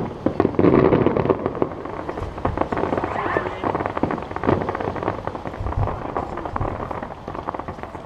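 Display fireworks going off in quick succession: a sudden start, then dense crackling and popping with many sharp bangs.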